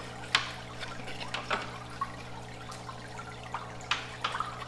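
Aquarium water bubbling and trickling where rising air bubbles break the surface, over a steady low hum. A few light clicks and taps come through it.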